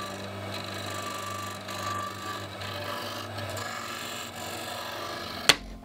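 Disc sander running with a steady hum while a plywood part is pressed against the spinning abrasive disc, rubbing its edge down to the template line. A single sharp click comes near the end.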